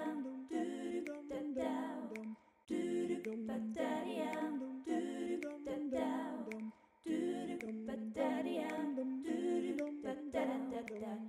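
Outro music of wordless a cappella voices humming a slow melody in held, stepping notes, in three phrases with short breaks between them.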